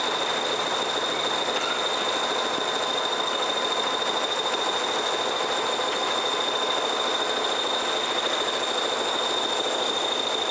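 A loaded log truck driving away along a rutted forest track, its engine and running gear making a steady rushing, rattling noise, with a faint steady high-pitched whine over it.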